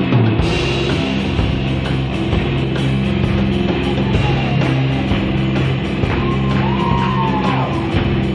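Rock band playing an instrumental passage: distorted electric guitars holding sustained chords over drums and cymbals, with a guitar note bent up and down near the end.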